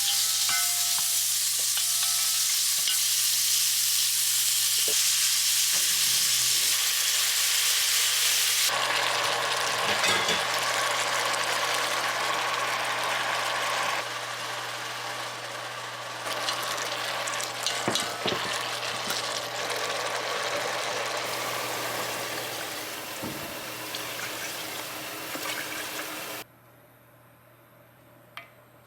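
Food sizzling in a hot frying pan, with a few sharp clicks and knocks of a utensil against the pan. The sizzle changes tone abruptly a couple of times and cuts off suddenly near the end, leaving quiet room tone.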